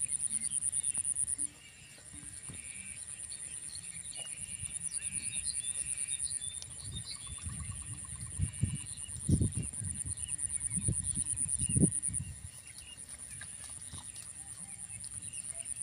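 Insects trilling steadily at a high pitch with a fast pulse, stepping up and down in strength a couple of times. Faint chirps sound in the first few seconds, and a few low rustling thumps come in the middle.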